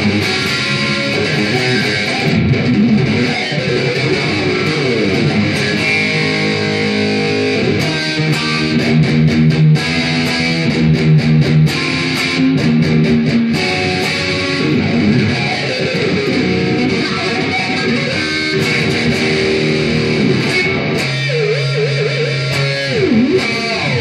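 Electric guitar, a replica Kramer 5150 Baretta with a Seymour Duncan JB humbucker, played through a Marshall Valvestate VS265 amp with reverb. Rock lead playing: held notes, a fast picked run about a third of the way in, and notes bent and sliding in pitch in the second half.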